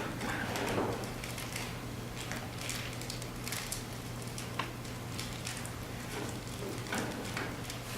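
Scattered small crackles and clicks over a steady low electrical hum.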